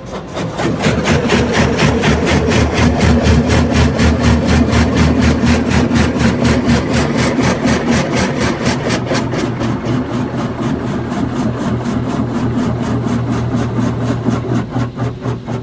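High-pressure water spray from a PDQ LaserWash M5 touchless car wash hitting the car, heard from inside the car's cabin over the low hum of the wash pump. The spray comes on about a second in and pulses rapidly and evenly as the nozzles pass over the car.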